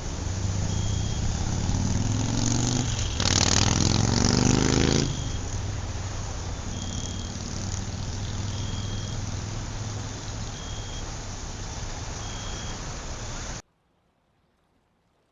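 Night-time city traffic: a steady rumble of road traffic, with a vehicle's engine rising in pitch as it accelerates past between about two and five seconds in, the loudest moment. A short high beep repeats about every two seconds over the traffic. Everything cuts off suddenly near the end, leaving near silence.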